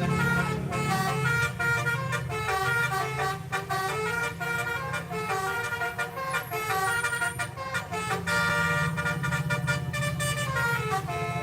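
Bus telolet horn playing a quick melody of stepped notes that rise and fall, over the steady running of the bus engine.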